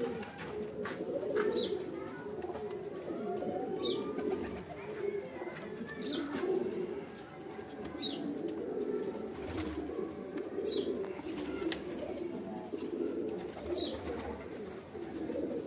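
Domestic pigeons cooing continuously in a small loft, several overlapping coos. A short high chirp repeats every two to three seconds over them.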